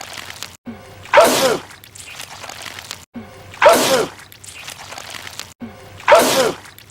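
A man sneezing three times in the same looped sneeze, about every two and a half seconds: a short intake sound, then a loud sneeze with a falling voice.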